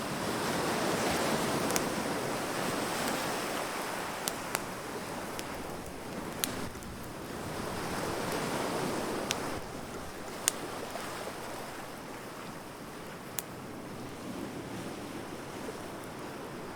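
Wood fire crackling, with several sharp single pops scattered through, over a soft hiss of surf that swells up twice and falls away.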